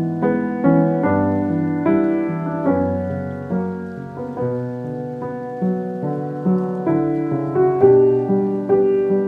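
Solo piano music, a slow piece with single notes and chords struck about twice a second and left to ring.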